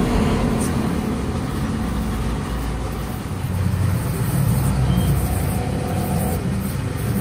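Air-powered buffing grinder running against the rubber sidewall of a big tractor tire, roughening the damaged area to prepare it for repair, over a steady low mechanical rumble.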